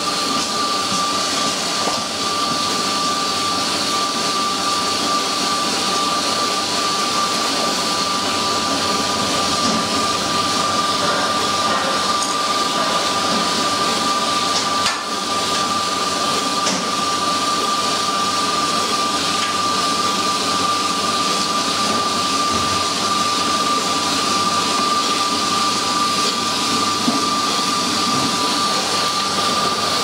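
Electric grouting equipment running steadily, its motor giving a constant high whine over an even mechanical noise.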